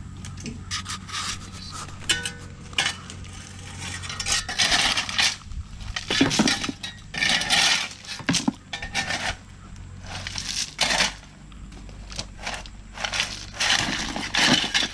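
Gravel being raked by hand with a metal rake: stones scraping and clinking together in irregular strokes, over a low steady hum.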